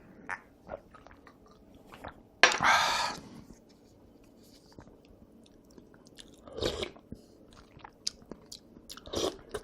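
Close-miked eating and drinking sounds: soft mouth clicks and chewing, with a loud noisy mouth sound about two and a half seconds in and two shorter ones later.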